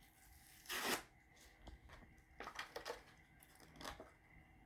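Toy car packaging being torn and crinkled open by hand: a short, louder tearing rasp about a second in, then a few fainter rustles.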